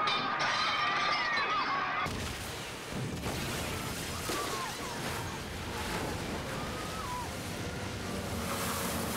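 Film sound of a capsizing ship. Several people scream; then about two seconds in, a sudden crash gives way to a loud, steady rushing roar of flooding water, with a few screams heard over it.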